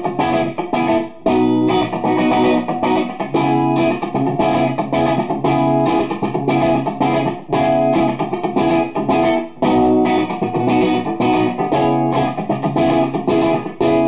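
Electric guitar playing a repeated riff of chords and picked notes on the bridge humbucker of a Gibson Les Paul '57 reissue goldtop, through a Marshall amplifier. The playing breaks off briefly about a second in and again near ten seconds.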